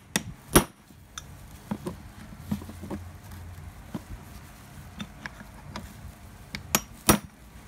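Hammer striking a metal punch to drive a hammer drill's rotor shaft out of the tail housing where it is stuck: one sharp strike about half a second in, light taps and knocks in between, then two strikes in quick succession near the end.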